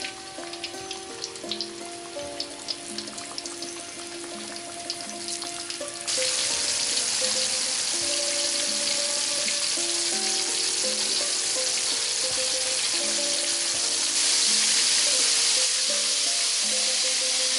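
Floured red tilapia strips deep-frying in hot oil in a wok: sparse crackling and popping at first, then about six seconds in a sudden change to a loud, dense, steady sizzle.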